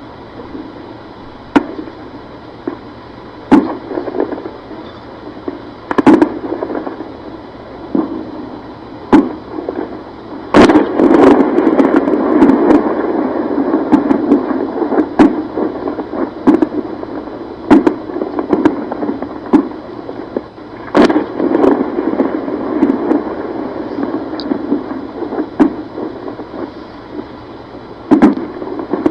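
Distant gunfire echoing: scattered single shots, with a long stretch of rapid firing about ten seconds in and another about twenty-one seconds in.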